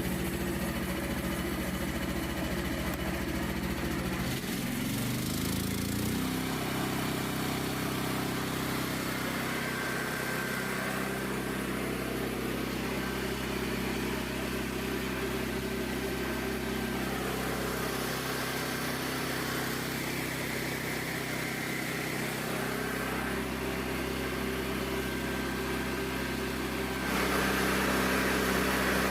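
Frontier OS27 sawmill's small gas engine running steadily. Its pitch rises about four to six seconds in as it is throttled up, and it gets louder near the end.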